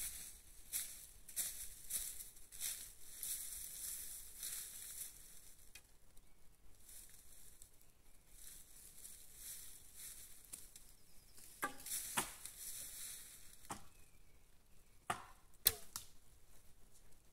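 Sharp cracks in the second half, the loudest near the end: arrows striking the pendulum target and the target knocking as it swings on its arm. Before that, a soft rustling comes and goes.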